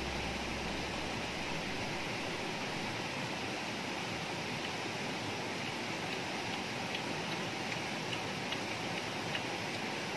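Steady rushing of a river flowing over rocks, with a few faint clicks in the second half.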